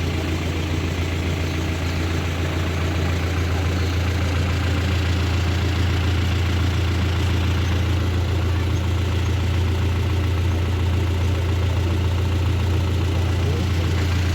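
A vehicle engine running steadily, a strong low drone that holds even throughout.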